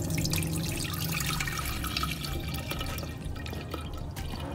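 Fresh orange juice trickling and dripping through a wire-mesh strainer as the pulp is pressed with a spatula, with a steady low hum underneath.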